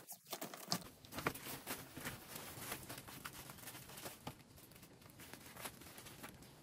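Woven plastic tarp crinkling and rustling as it is handled and fastened against plastic mesh, with scattered small clicks and taps.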